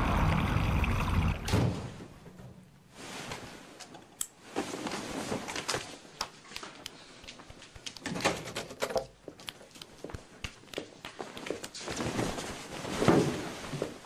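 A low rumble that dies away within the first two seconds, then a door being handled and opened amid scattered knocks, clicks and thuds.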